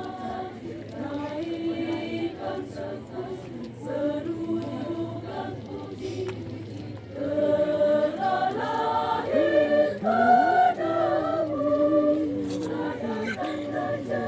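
Women's church choir singing a hymn, the voices in several parts, growing louder about seven seconds in.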